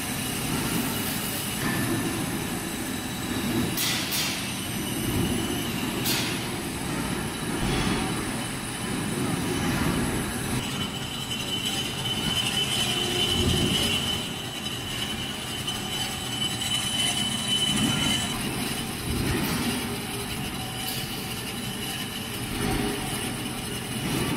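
Metal lathe running as a tool bit takes a facing cut across a clutch pressure plate's friction face to reface it: a steady machine rumble that swells and eases every couple of seconds, with a couple of sharp ticks early. A high steady squeal from the cut joins a little before halfway and fades out about three quarters through.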